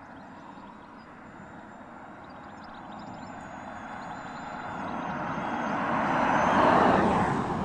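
Electric Hyundai IONIQ 5 driving past: tyre and wind noise with no engine sound, growing steadily louder as it approaches, peaking about seven seconds in and dropping in pitch as it goes by.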